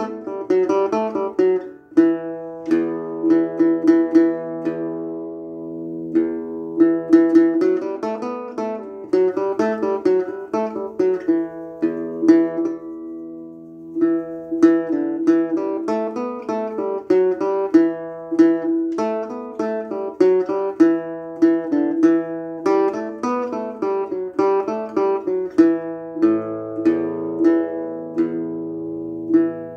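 Solo acoustic guitar, in standard tuning, playing a modal tune in E dorian. Quick plucked melody notes run over one constantly repeated ringing note, easing into held, ringing notes briefly around six and again around thirteen seconds in.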